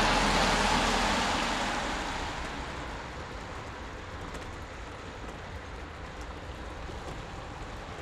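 A vehicle passing and fading away over about three seconds, leaving a steady, quieter background hiss with a few faint clicks.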